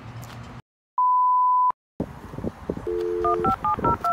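A single steady high beep lasting under a second, set between stretches of dead silence, followed by a brief dial tone and then a quick run of touch-tone telephone keypad digits, about five a second.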